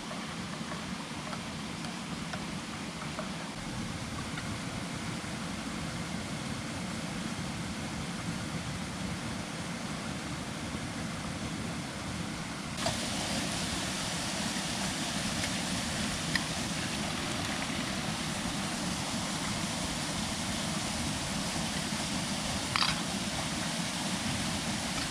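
Steady rushing noise of a plunge waterfall, with no distinct pitch. About halfway through it steps up abruptly to a slightly louder, brighter hiss.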